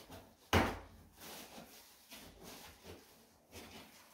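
A sharp knock about half a second in, then irregular rustling and scraping as pieces are taken out of a large cardboard box and its packaging.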